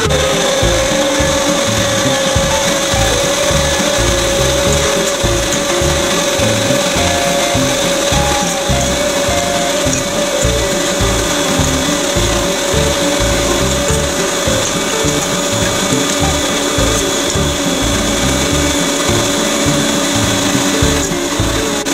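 Electric meat grinder motor running steadily with a constant whine, under background music with a beat and a moving melody.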